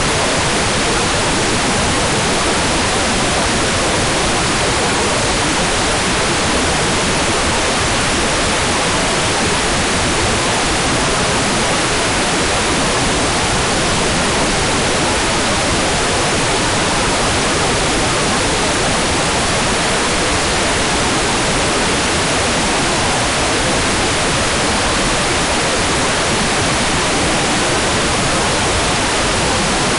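Hair dryer running steadily: a constant, even rush of air noise that does not change.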